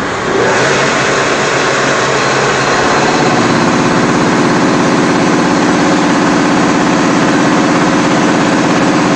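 CNC polygon lathe running: a loud, steady machine noise rises about half a second in, and a steady low hum with a fast even pulse joins it about three seconds in.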